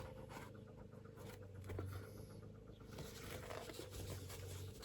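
Faint rustling and small taps of craft materials being handled, such as a roll of faux leather, over a low steady hum.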